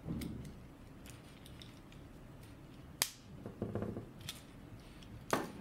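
RJ45 crimp tool crimping a plug onto a Cat5 cable: a sharp click about three seconds in, a lighter click with handling rustle, then a louder clack near the end.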